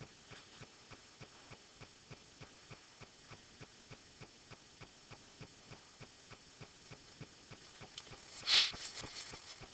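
Faint, regular tapping and scratching of a pen stylus scribbling back and forth to shade in drawn cells, about three strokes a second. Near the end comes a short, louder breathy hiss.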